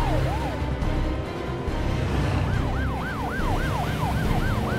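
Vehicle sirens in quick rising-and-falling yelp sweeps, about three a second; a lower siren fades out early and a louder, higher one comes in about two and a half seconds in, over a steady low rumble.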